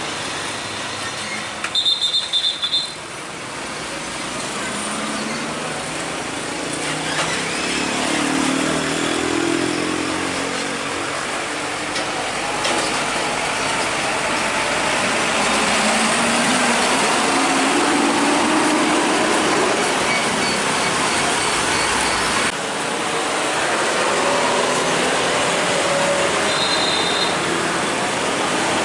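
Heavy Hino 500 diesel trucks crossing a railway level crossing at low speed, engines running and rising and falling in pitch as they pull through, over steady road traffic. Short high beeps sound about two seconds in and again near the end.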